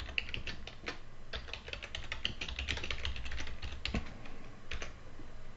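Typing on a computer keyboard: a quick run of keystrokes entering a password, with a few heavier key presses near the end before it stops.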